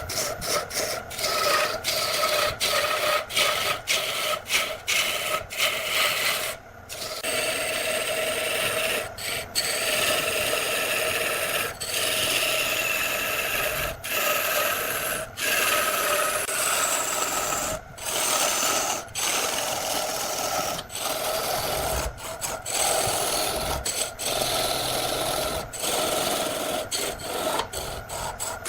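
Wood lathe running with a turning tool cutting the spinning wood: a steady scraping hiss over a constant hum, broken by frequent brief gaps.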